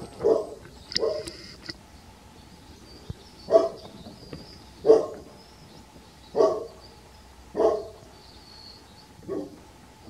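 A series of short, loud barks, about seven in a row, roughly one every second and a half, the last one weaker.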